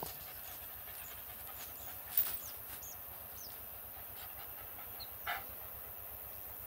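A dog panting, with a short sharp noise about two seconds in.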